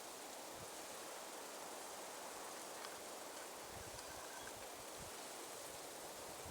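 Faint, steady outdoor hiss of light wind and rustling brush, with no distinct event.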